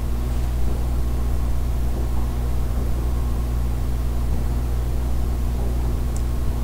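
Steady low background hum made of several even tones, with a faint hiss over it, holding unchanged throughout.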